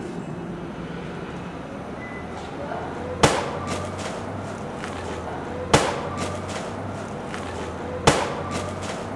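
A package wrapped in plastic air-cushion packing smacking down onto a concrete sidewalk, followed by a few light bounces and crinkles. The sharp impact comes three times, about two and a half seconds apart.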